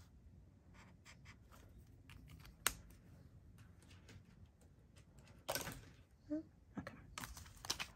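Faint tapping and scratching of a felt-tip marker colouring in a square on a paper chart, then one sharp click about a third of the way in. From about two-thirds through, several short spells of rustling from paper bills and plastic cash envelopes being handled.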